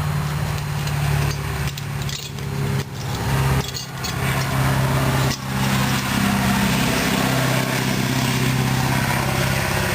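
A small engine running steadily, its pitch shifting a little a few seconds in.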